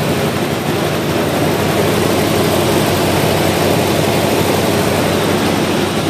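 1972 Ford F-250's engine idling steadily through its dual exhaust.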